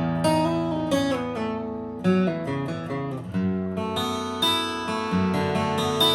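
Yamaha LL8J acoustic guitar being played, a melody picked over chords, with fresh chords struck about once a second and left ringing.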